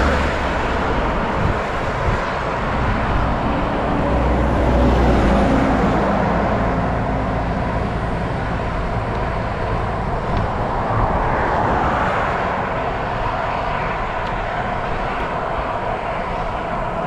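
Wind rushing over a camera microphone during a bicycle ride, with road noise: a steady rushing with a heavy low rumble that swells a little about five seconds in.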